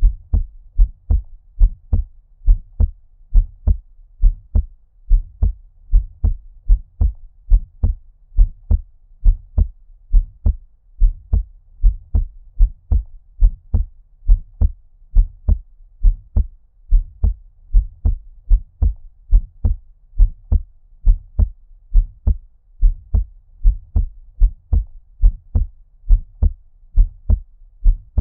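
Muffled heartbeat at a normal resting rate: steady double thumps (lub-dub), deep and low, as if heard underwater.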